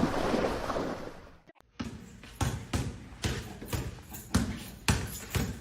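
A series of sharp thumps repeating about twice a second, starting after a brief break about a second and a half in.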